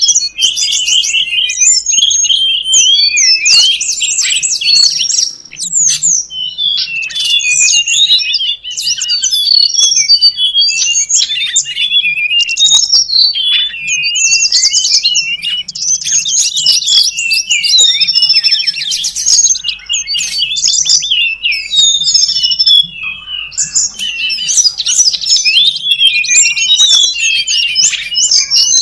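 Tledekan gunung birds chirping and calling busily: a dense, nearly unbroken chatter of quick, high twittering notes that overlap one another, the kind of noisy flock call used to lure the birds in. A faint low hum runs underneath.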